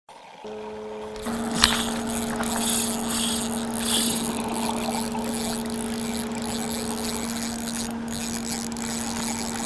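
Intro sound effects: water rushing and splashing over a steady low hum, with a single sharp crack about one and a half seconds in.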